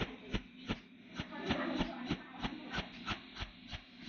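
Cold welding machine firing short welding pulses through its torch, a steady series of sharp clicks about three a second, each pulse laying one scale of a fish-scale weld bead along a thin metal edge.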